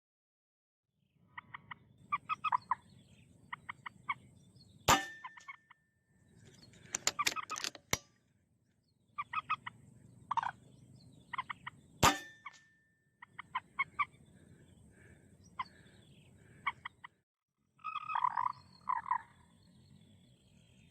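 Common moorhens calling, bursts of rapid croaking clucks repeated through several short clips. Two sharp cracks are the loudest sounds, about five seconds in and again about seven seconds later, each with a brief ringing tone after it: air-rifle shots.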